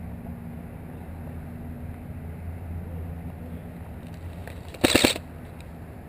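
Low rumble of wind on the microphone, then about five seconds in a short burst of rapid airsoft gun fire, lasting about a third of a second.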